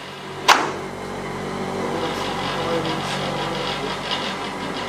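Steady mechanical hum of kitchen equipment, with one sharp knock of kitchenware about half a second in.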